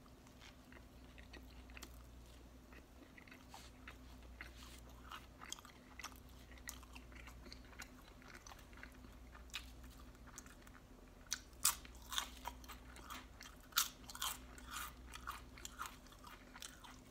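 Close-miked chewing of a bite of pulled pork barbecue sandwich, with wet mouth clicks and smacks that come louder and sharper in the second half.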